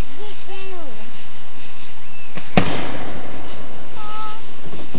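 A firework shot going off with one sharp crack about two and a half seconds in, followed by a fizzing hiss as it burns and rises.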